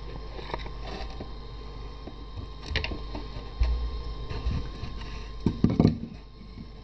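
Steady low hum with scattered light knocks and clicks. Louder knocks and rubbing come near the end as a hand handles the birch-wood clock-face disc.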